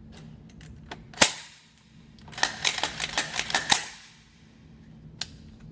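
AR-15 pistol with a standard carbine buffer spring firing: one shot about a second in, then a rapid string of about nine shots in under a second and a half, and a single shot near the end.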